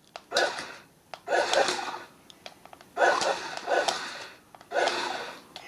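Remote-control BB-8 toy droid making four short bursts of breathy, electronic sound as it is first driven with its remote.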